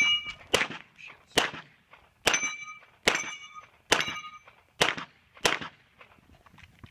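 A pistol firing about eight shots in quick succession, roughly one every 0.6 to 0.9 seconds. Several hits are followed by a ringing clang from steel targets.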